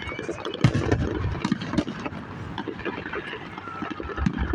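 Fireworks going off: irregular sharp bangs and pops, several within a few seconds, over a low steady rumble.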